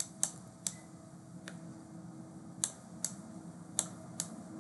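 About eight sharp, separate clicks at uneven intervals while a word is handwritten onto a digital slide, with a faint steady hum underneath.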